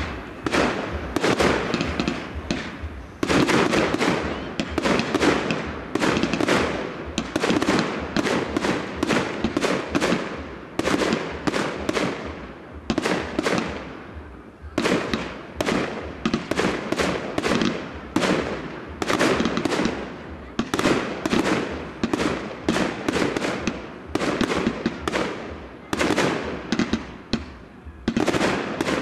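Fireworks display: a rapid, continuous series of aerial shell bangs, several a second, each trailing off before the next.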